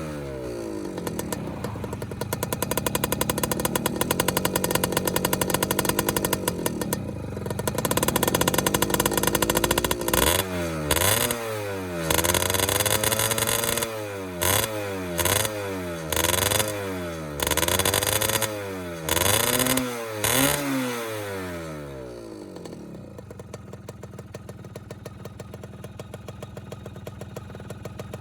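Modified Yamaha F1ZR racing motorcycle's two-stroke single-cylinder engine revving: held at raised revs for the first ten seconds, then snapped with about ten quick throttle blips roughly a second apart, then dropping back to a steady idle for the last few seconds.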